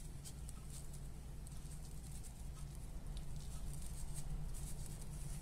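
Faint rustling and soft crackle of brined grape leaves being folded and rolled by hand, in short scattered bursts, over a steady low hum.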